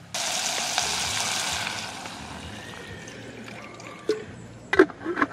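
Water poured into an aluminium camping cook pot for about two seconds, starting suddenly and then easing to a softer hiss. A few sharp knocks near the end are the loudest sounds.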